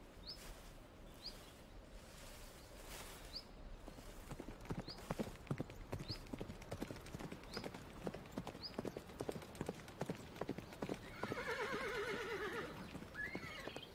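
Horse hooves clip-clopping, growing louder from about four seconds in, then a horse whinnying near the end. A small bird chirps about once a second through the first half.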